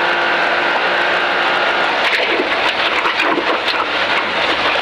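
Toyota GR Yaris AP4 rally car's engine heard from inside the cabin at speed. It holds a steady note for about two seconds, then the note breaks up as the car brakes into a right-hander. Sharp knocks and rattles from the road come through the body.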